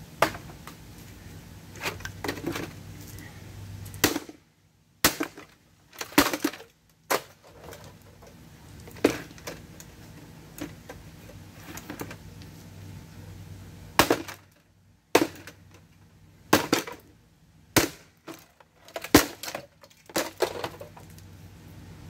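Plastic space heater being smashed: an irregular series of sharp knocks, cracks and clatters as it is struck, slammed down on a wood-cased radio and kicked across gravel, its plastic casing breaking.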